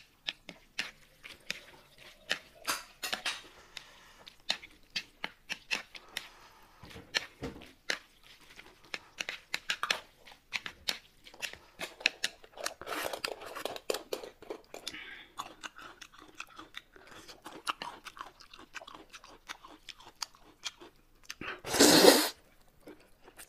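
Close-up eating sounds: steady chewing with many short, crisp mouth clicks and smacks. Near the end comes one loud slurp as a mouthful of noodles is sucked up.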